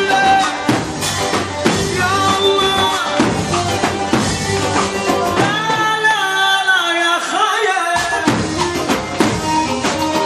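Arabic pop music with a steady drum beat and a melodic lead line. Past the middle, the drums and bass drop out for about two seconds, leaving the melody alone, then the beat comes back.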